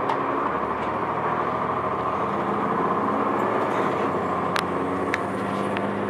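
Cabin sound of a 2002 Blue Bird CS 40-ft transit bus: its Cummins ISC diesel engine running steadily through the Allison B400R transmission, with road noise and a couple of sharp interior rattles. A faint high whine rises slowly near the end.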